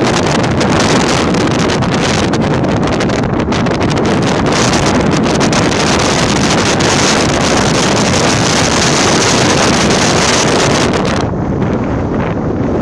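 Heavy wind noise on the microphone of a moving motor scooter, with the scooter's engine and road noise mixed in. The hiss thins out sharply near the end, as the bike enters a bend.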